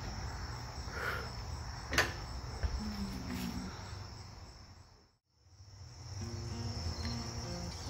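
Quiet shop background with a steady high-pitched tone and a single sharp knock about two seconds in. The sound fades out to silence just past the middle, then fades back in with faint music holding low notes.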